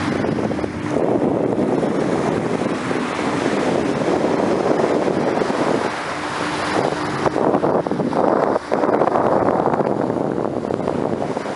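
Wind buffeting the microphone over the steady rush of sea water along the bow of a fishing vessel under way, with a faint hum that comes and goes.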